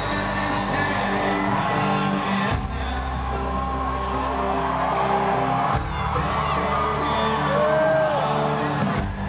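Live country band playing, with electric guitars, drums and bass under a male lead vocal, and whoops from the stadium crowd.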